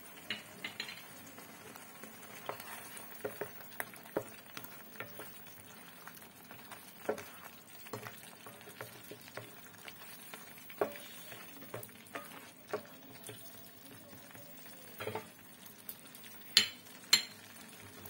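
A spatula stirring a thick coconut-and-cream prawn curry in a non-stick pan: irregular scrapes and taps against the pan over a faint simmer, with two sharper taps near the end.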